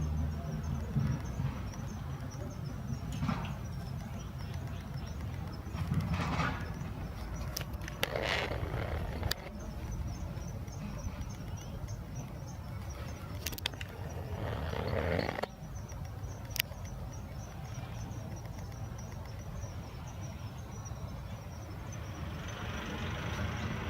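Outdoor ambience: a steady low rumble of distant traffic with an insect trilling high and steadily, and a few brief louder sounds at about 8 and 15 seconds in.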